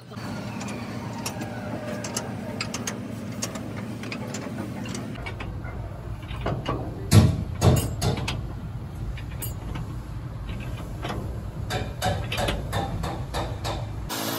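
Workshop sounds: a steady low mechanical hum with scattered clicks and knocks. Two louder knocks come a little past the middle.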